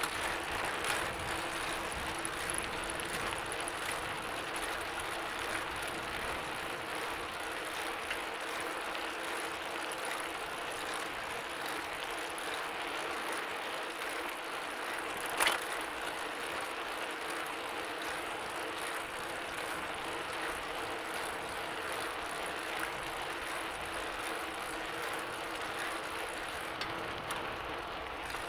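Bicycle being ridden: a steady mechanical whir with the ticking of the rear freewheel ratchet, and one sharp click about halfway through.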